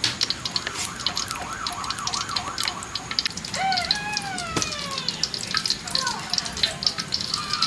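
A child's high voice wailing in a quick up-and-down wobble, siren-like, then in a few falling glides, over a steady crackling.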